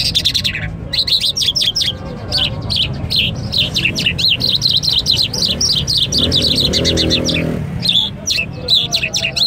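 Small caged songbirds singing in fast runs of quick, sharply gliding chirps, one unbroken run lasting several seconds through the middle.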